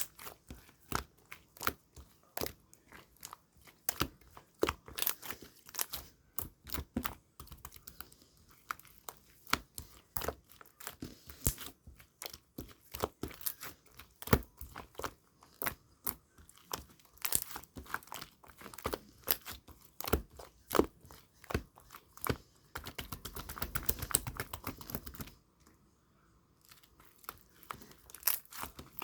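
Clear slime being squeezed and stretched by hand, giving irregular sticky clicks and pops several times a second. About 23 s in there is a two-second run of rapid, almost continuous crackling, then it goes briefly quieter.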